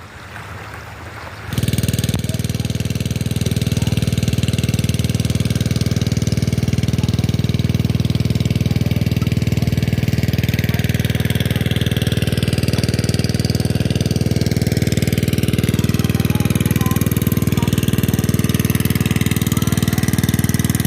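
Small petrol engine running steadily with a rapid, even clatter. It comes in abruptly about a second and a half in.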